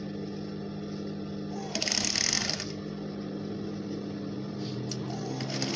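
Industrial sewing machine: its motor hums steadily, and about two seconds in it runs a short burst of stitching lasting about a second.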